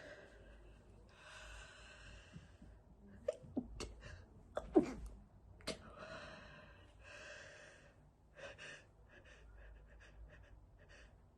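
A person gasping in breath, then a few short stifled sneezes held back to keep quiet, the loudest about halfway through, followed by more gasping breaths.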